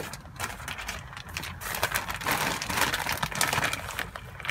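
Irregular rustling, crinkling and crackling of potting soil and plastic being handled by hand during repotting.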